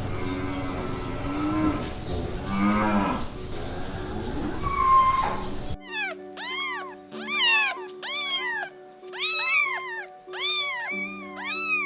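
Cattle mooing in low, drawn-out calls, then a kitten meowing over and over, each meow high and rising then falling, about once a second. Steady background music plays underneath.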